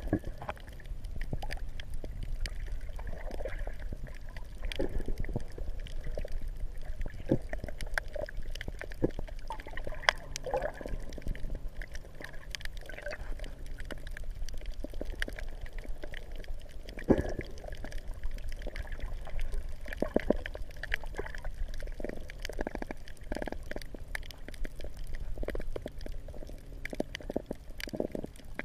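Water gurgling and sloshing, with irregular short clicks and pops over a steady low rumble.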